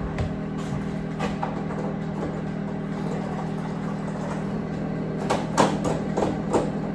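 Steady hum of a kitchen appliance, with a few light clicks and knocks of kitchen things being handled in the second half.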